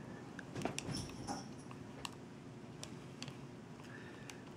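Small metal parts of a Taifun GT rebuildable tank atomizer clicking and scraping as its top cap is fitted back on by hand: scattered light clicks, busiest about a second in.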